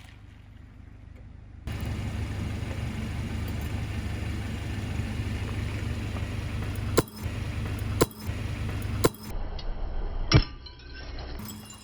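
A car's engine running as it rolls slowly, with four sharp cracks about a second apart as objects break under the tyres, the last one loudest.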